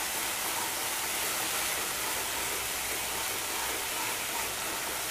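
Melon seeds and cumin frying in hot oil in a nonstick kadai, giving a steady sizzle.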